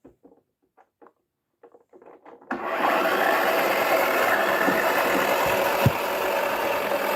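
Toy washing machine's small electric motor starting about two and a half seconds in and running steadily as the drum turns with a rugby ball inside, after a few faint handling clicks. One brief knock near the end.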